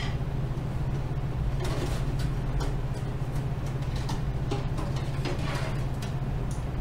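A steady low hum, with scattered light clicks and scrapes of hardware being handled, such as screws and a power supply being worked in and out of a metal PC case.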